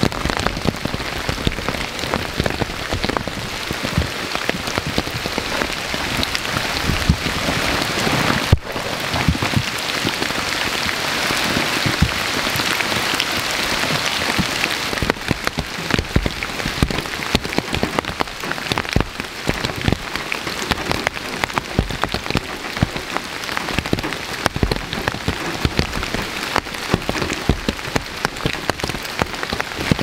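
Heavy rain falling: a loud, steady, dense hiss with many separate drop hits heard through it.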